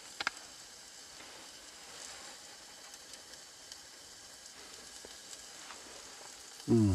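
Steak sizzling gently on a small gas burner turned way down, a soft steady frying hiss with small crackles. A brief sharp sound stands out about a quarter second in.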